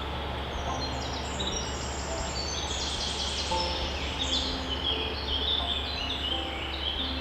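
Birds chirping in a dense chorus of short high notes, busiest in the middle, over a steady low hum.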